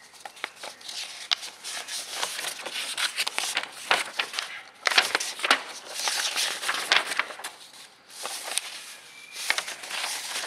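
Paper pages of an instruction booklet rustling and crackling as they are handled and flipped, in repeated bursts.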